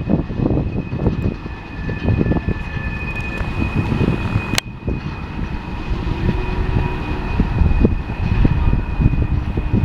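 BNSF manifest freight train rolling past: a low rumble with a thin, steady high-pitched squeal over it, and one sharp click about halfway through.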